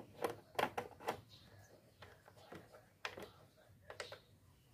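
Light clicks and taps of a screwdriver working the screws out of a motorcycle's plastic headlight cover. There is a cluster of clicks in the first second, then a few more near the end.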